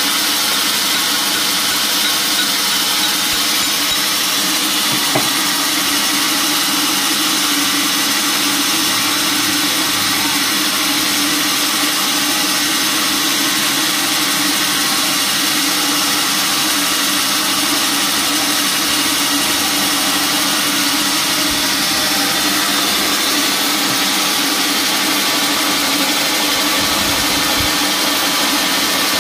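Band sawmill running steadily: an even, unbroken mechanical hum with a strong hiss over it.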